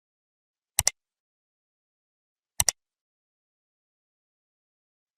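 Two sharp double clicks, each a pair of quick ticks, about two seconds apart in otherwise dead silence.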